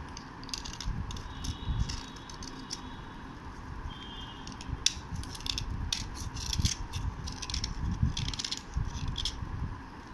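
A knife blade scraping the dry face of a thin white slate triangle in short, irregular strokes. Flakes of soft slate crumble and chip away.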